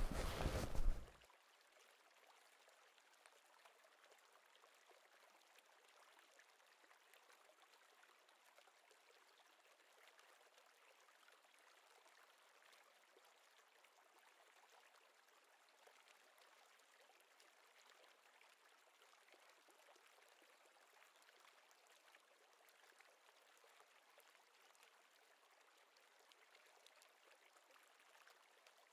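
A second of loud outdoor noise with a low rumble, cut off abruptly, then near silence with only a faint steady hiss.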